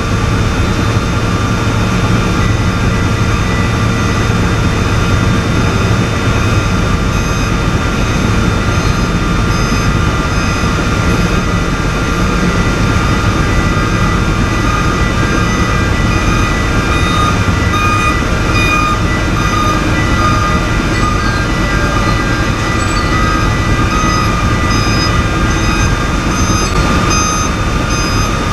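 Container truck engine running steadily, with a reversing alarm beeping over it from about a quarter of the way in, growing clearer toward the end.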